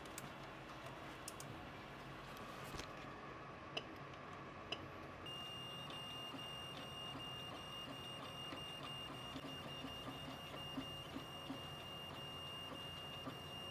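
Faint clicks and two short high beeps as an SD card is pushed into a Wanhao Duplicator 6 3D printer and it is set going. About five seconds in, a steady high-pitched whine with light ticking starts as the printer runs.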